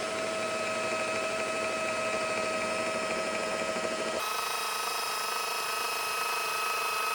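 Makita rotary polisher with a wool pad running steadily, buffing compound into gel coat, a constant motor whine. About four seconds in, the whine shifts abruptly to a lower tone.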